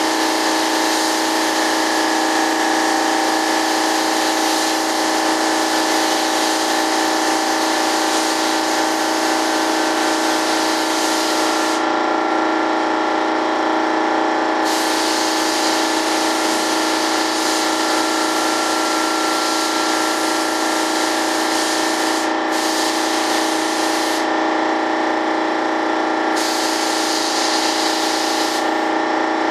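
Air spray gun hissing as it sprays primer, in bursts controlled by the trigger: one long burst of about 12 seconds, a pause of about three seconds, a burst of about 7 seconds, then two short bursts near the end. Under it a steady machine hum runs without change.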